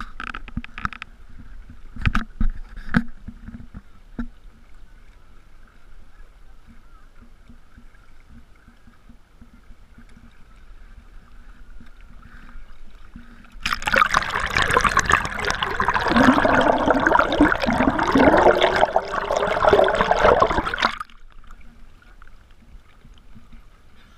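Lake water lapping and splashing against the hull of a wooden rowing boat, close to the microphone, with a few knocks near the start. For about seven seconds in the middle, loud rushing and gurgling as the water surges against the hull, cutting off suddenly.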